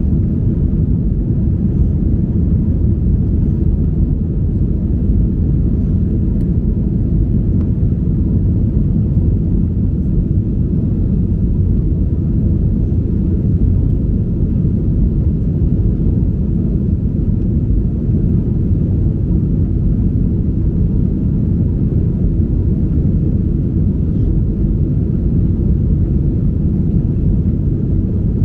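Steady low rumble of an Airbus A321's cabin in the climb after takeoff: engine and airflow noise heard through the window seat, unchanging throughout.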